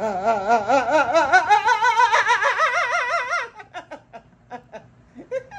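A person laughing: a long voiced laugh whose pitch wobbles up and down about four to five times a second, breaking up about three and a half seconds in into short, breathy laugh pulses.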